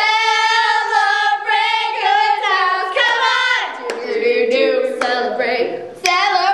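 Young girls' voices singing together, with long held high notes that shift in pitch every second or so.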